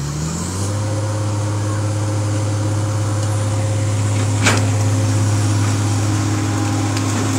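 Mercedes-Benz Actros 3340 tanker truck's diesel engine revving up in the first second, then held steady at high revs, pulling the loaded tanker through deep mud. A brief sharp click sounds about four and a half seconds in.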